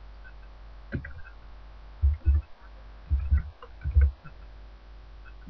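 Keystrokes on a computer keyboard typing a short word: about eight dull knocks in small irregular groups, over a steady mains hum.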